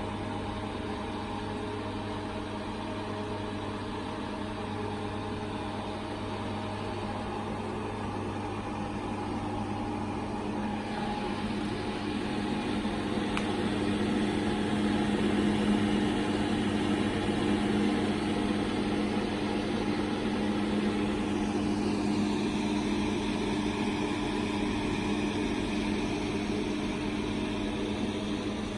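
Sysform 50B perfect binding machine running with a steady electric motor hum. The hum grows louder partway through, and about two-thirds of the way in a higher tone slides down and then holds.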